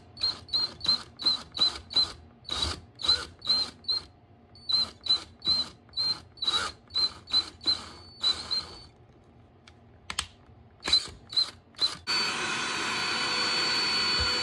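DeWalt 18V cordless drill run in short, rapid trigger bursts, about three a second, each with a brief motor whine, as the bit bores through half-inch drywall. About twelve seconds in, a Bissell AeroSlim cordless hand vacuum switches on and runs steadily with a high whine.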